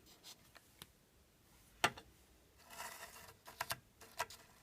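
Scattered small clicks and taps of hard items being handled at a Bosch Tassimo coffee machine, with one sharper click just under two seconds in and a brief soft rustle around three seconds in.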